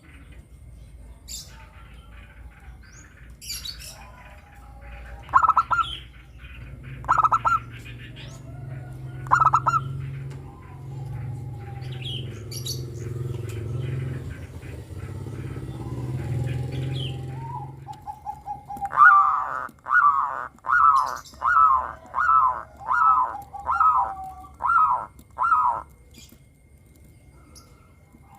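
Zebra doves (perkutut) calling: three short coos, then after a pause a quick run of about nine repeated notes, with small birds chirping faintly in the background. A low steady hum runs through the middle stretch.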